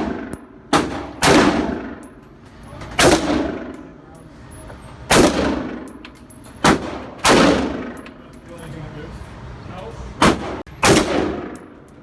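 Gunshots fired one at a time, about eight irregularly spaced shots, some in quick pairs, each followed by a long echoing tail.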